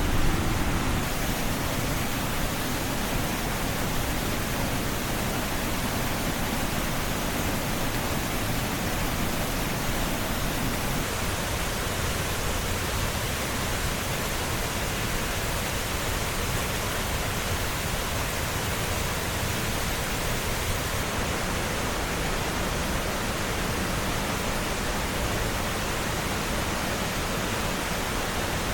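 Mountain torrent water rushing and splashing over rocks in a steady, even hiss.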